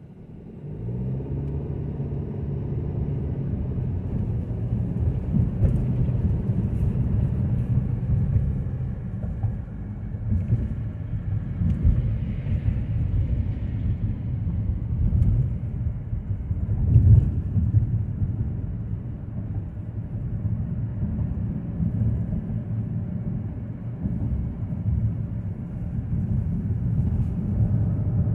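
Kia Seltos pulling away from a stop and cruising, heard from inside the cabin. The engine note rises as the car accelerates in the first few seconds, then settles into a steady low rumble of engine and tyres on the road.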